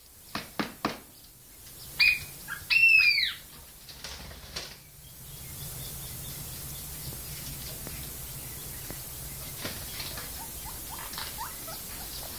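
Monk parakeet giving two short, high squeaky chirps about two and three seconds in, the second the louder, amid scattered clicks of straw rustling in the cage's hay. Later a steady low hum with faint rustling.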